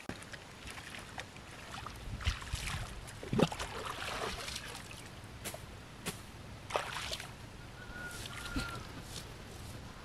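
Water sloshing and splashing in irregular bursts as a person wades through a shallow muddy stream.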